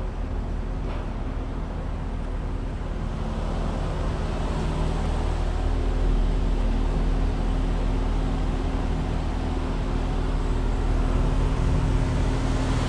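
Car engine running at low speed with a steady low hum and tyre and road noise as the car creeps forward, growing slightly louder toward the end.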